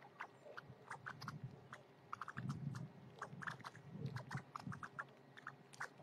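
A flock of blackbirds at a seed feeder making short, squeaky chirps and clicks that sound like computer noises, scattered irregularly. Under them are soft pecking and shuffling sounds from the birds feeding.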